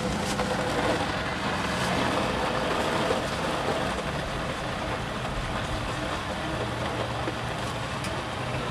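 Commercial countertop blender motor running steadily, blending a fruit smoothie, with street chatter underneath.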